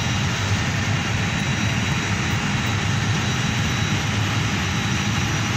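Steady rushing hum of a powered-up Airbus A320 cockpit's ventilation and equipment-cooling fans, with a thin high whine running through it.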